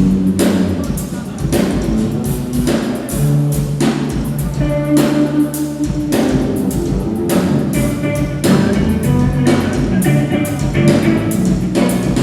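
Drum kit played busily over live band music, with many quick hits above held bass and keyboard-like notes.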